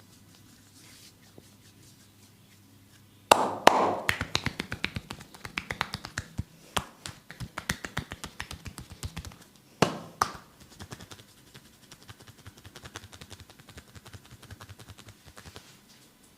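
Bare hands striking skin in a percussive massage: loud sudden smacks a few seconds in, then a quick run of taps several a second, a second loud burst of smacks about ten seconds in, and fainter rapid taps after that.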